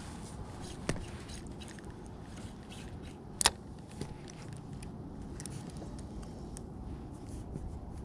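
A steady low rumble with a few sharp clicks and knocks from handling a spinning rod and reel at a concrete railing. The loudest click comes about three and a half seconds in, with smaller ones about a second in and just after four seconds.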